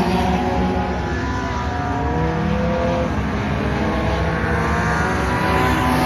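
Front-wheel-drive dirt-track race cars running laps, several engines at once, their pitches rising and falling as the cars pass and go through the turns.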